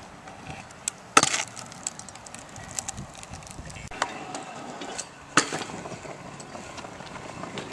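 Stunt scooter landing tricks on concrete: sharp clacks of the deck and wheels hitting the ground, the loudest about a second in and two more about four and five and a half seconds in, with smaller clicks and the rumble of hard wheels rolling between.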